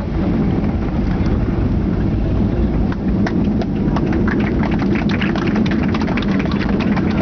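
Cabin noise of a Boeing 737-800 airliner landing, heard from a window seat over the wing: a steady low roar of engines and airflow. From about three seconds in, rapid rattles and knocks join it as the aircraft rolls down the runway after touchdown with its spoilers raised.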